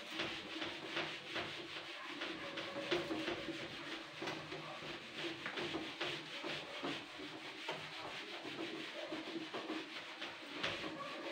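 Whiteboard being wiped clean with a cloth: continuous, irregular back-and-forth rubbing strokes of fabric on the board.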